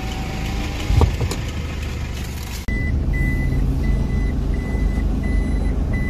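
Toyota Fortuner's in-cabin reverse warning beeping, one steady high beep about every 0.7 s, over the low hum of its diesel engine running. Before that, road and engine rumble from the moving car with a single thump about a second in.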